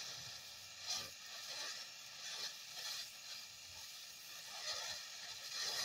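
Frisky Starburst consumer firework fountain burning, its spark spray giving a steady hiss, with a few brief louder surges, about a second in and near the end.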